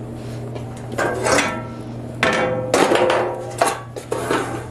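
Sheet-steel side panel of an IKEA Kolbjörn cabinet being flipped over on a wooden floor: a series of metallic clanks and rattles, each ringing briefly, the longest just over two seconds in.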